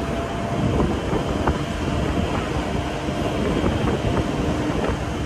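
Open-air safari tram running along the route, a steady low rumble of engine and wheels with a few faint clicks.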